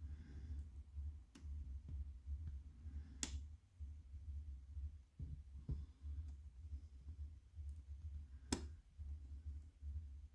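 Lock picking: a few sharp metallic clicks as the pick and tension tool work the pins of a challenge lock held in a vise, over a steady low rumble.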